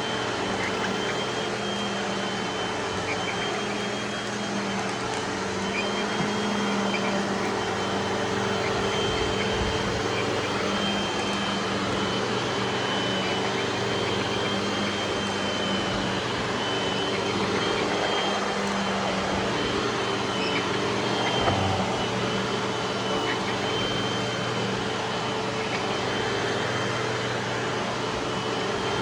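Panasonic vacuum cleaner running steadily: a constant motor hum with a thin high whine over it.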